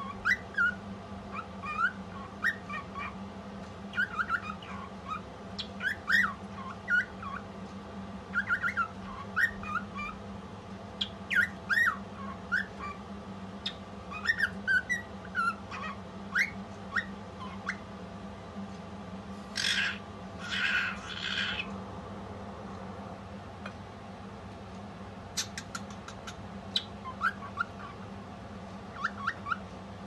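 Female cockatiel singing: phrases of short, gliding whistled chirps, with two louder, harsher calls about two-thirds of the way through and sparser chirps near the end.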